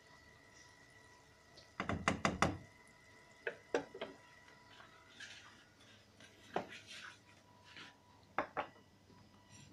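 Kitchen utensils knocking and clinking as food is dished from a nonstick kadai into a glass serving dish: a quick run of about five knocks about two seconds in, then scattered single clicks with a soft scrape, and two clinks near the end.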